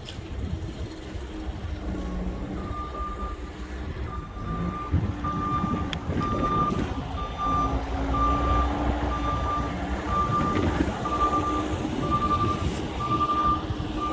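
A truck's reversing alarm beeping about once a second, starting a couple of seconds in, over the low rumble of its engine.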